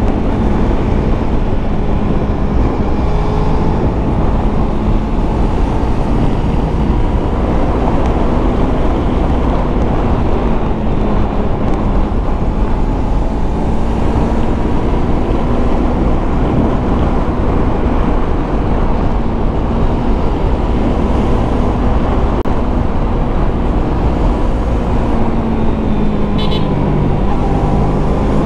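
Yamaha MT-25's 250 cc parallel-twin engine running under way at a fairly steady pitch, with a heavy rumble of wind and road noise on the microphone. Near the end the engine note drops briefly and then picks up again.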